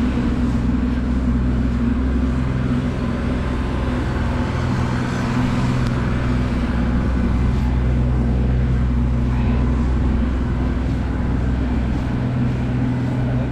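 Vehicle engine idling close by, a steady low drone over general city street noise.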